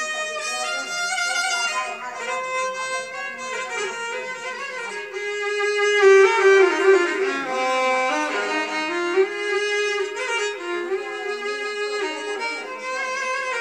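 Solo violin, held upright and bowed, playing a melody of sustained notes with sliding ornaments between them, swelling loudest about halfway through.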